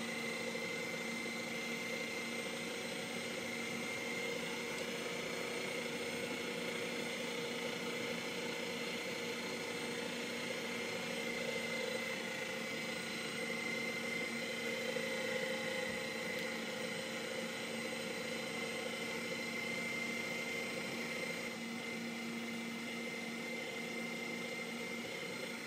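Electric meat grinder running steadily with a sausage-stuffing tube fitted, forcing ground pork neck into a sausage casing. A constant motor hum with a higher whine above it.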